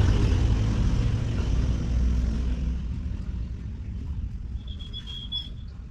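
Low engine rumble, loud at first and then gradually fading away over the last few seconds.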